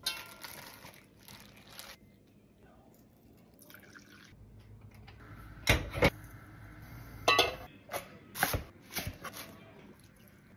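Food and cookware being handled: sliced onions rustling into a cast-iron pot, then a run of about six short, sharp knocks and clinks of pots and utensils in the second half, over a low hum.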